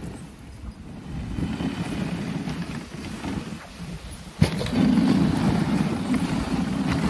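Dog sled runners sliding over a packed snow trail: a steady, rough rumbling scrape that gets louder after a sharp knock about four and a half seconds in.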